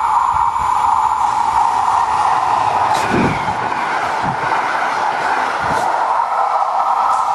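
Locomotive-hauled passenger train passing close at speed: a steady rush of wheels on rail, with a few dull thumps along the way.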